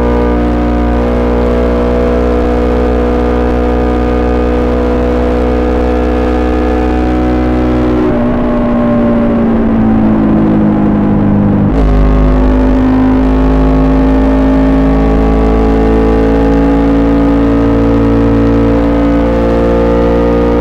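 KTM 200 Duke's single-cylinder engine through an SC-Project SC1-R exhaust, running under steady throttle while riding. About eight seconds in the throttle closes and the pitch falls. Nearly four seconds later the throttle opens again with a sudden louder note, and the pitch climbs steadily as it accelerates.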